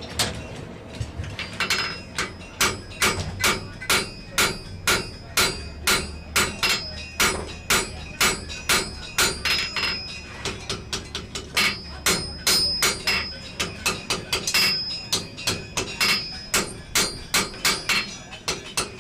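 Blacksmith's hand hammer forging hot iron on an anvil: steady blows about two to three a second, each leaving a bright ring, with a few lighter taps mixed in partway through.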